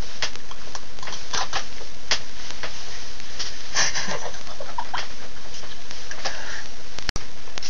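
Wet kissing and lip-smacking sounds: a run of short, irregular smacks and clicks over a steady hiss, with a burst of a girl's laughter about four seconds in. The sound cuts out for an instant near the end.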